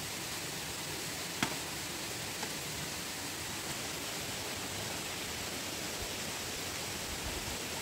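Steady, even hiss, with one sharp click about one and a half seconds in.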